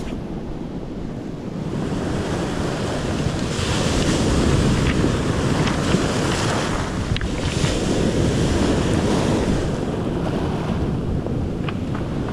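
Surf washing in over a beach of rounded cobbles, the wash swelling and easing twice, with wind buffeting the microphone and a few faint clicks.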